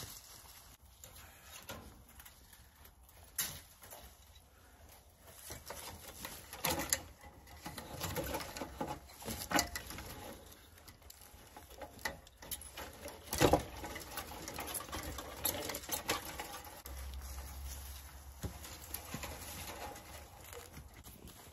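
Woven page-wire fencing being handled: irregular rustling and scraping of wire, with scattered sharp clicks and knocks, the loudest a single knock about two-thirds through.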